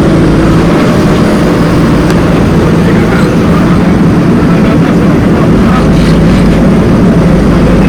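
Heavy diesel engine of earth-moving machinery, a backhoe loader or tractor, running steadily at a loading site: a loud, even drone that holds the same pitch throughout.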